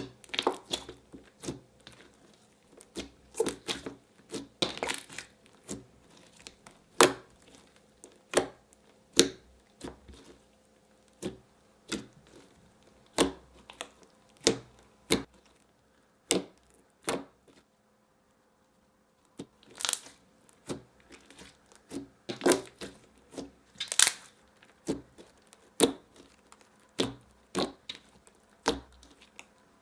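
Glossy slime with foam beads being poked and squished by hand, giving irregular bubble pops and clicks. The popping stops for a few seconds about halfway, then starts again.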